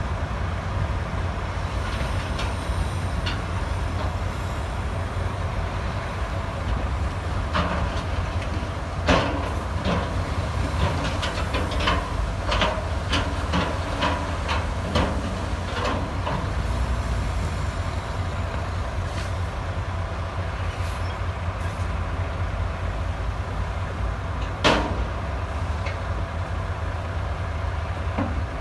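Diesel engine of heavy earthmoving machinery running steadily at a low rumble. About a third of the way in come a run of sharp knocks, roughly two a second for several seconds, and one more knock near the end.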